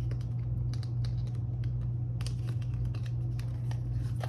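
Light clicks and taps of paper cards and envelopes being handled and sorted, a cluster of them about two seconds in, over a steady low hum.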